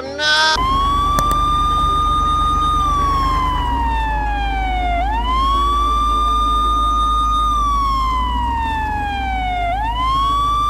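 Police car siren wailing in a slow cycle: the tone rises, holds, then slides down, twice, over a low, steady engine rumble.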